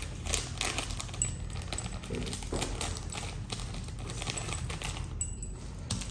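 Light, irregular clicking and rattling as a small sachet of noodle flakes is shaken and tapped empty over a plate of noodles, with heavy metal rings and bracelets clinking against each other.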